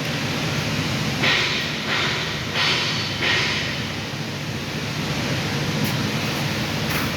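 TIG welding arc hissing steadily over a low electrical hum, with four short louder surges of hiss between about one and three and a half seconds in.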